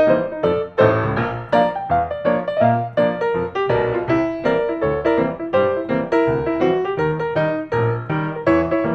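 Background piano music: a steady run of short notes over a bass line.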